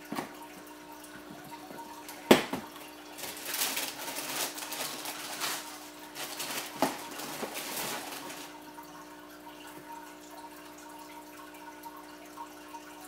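Tissue paper rustling and crinkling as a cardboard sneaker box is handled and a shoe is unwrapped, with a sharp knock a little over two seconds in. A steady trickle and hum, typical of an aquarium filter, runs underneath.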